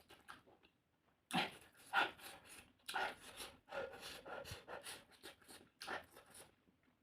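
Close-up mouth sounds of a person eating spicy fish: a quick run of short, irregular chews, smacks and breaths, starting about a second in.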